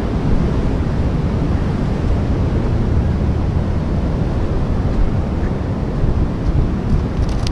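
Steady wind rumbling on the microphone, mixed with surf washing on the shore.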